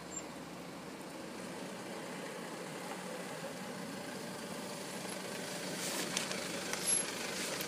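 Mercedes-Benz Sprinter minibus engine running as the bus drives slowly up close, growing steadily louder.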